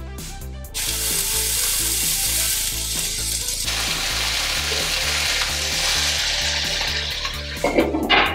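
Onion-tomato masala sizzling in a frying pan, the hiss starting about a second in, while a spatula stirs it. Near the end a glass lid clatters down onto the pan.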